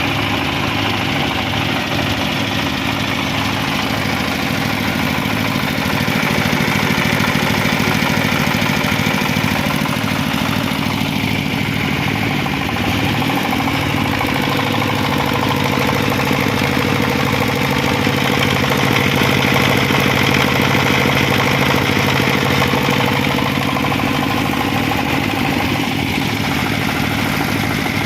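Diesel generator engine running steadily at a constant speed.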